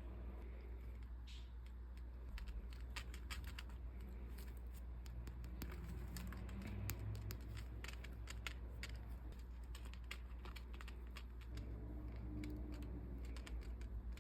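Packaging being handled and opened by hand: a run of small irregular clicks, scratches and crinkles of paper and plastic.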